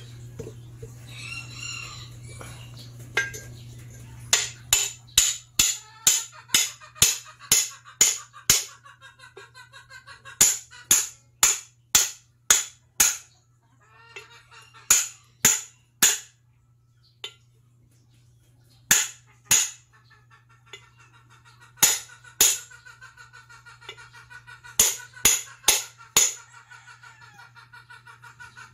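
Runs of sharp knocks, about two a second, stopping and starting several times, with chickens clucking in the background.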